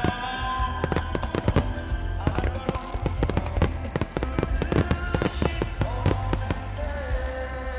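Starmine fireworks going off in a rapid, continuous barrage of bursts and crackles, with music playing along underneath.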